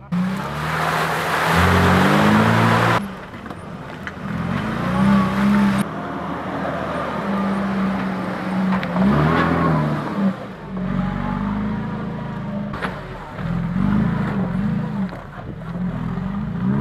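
A UAZ Patriot SUV's engine revs up and down under load as the vehicle works slowly through deep mud, its pitch rising and falling again and again. The sound changes abruptly about three and six seconds in.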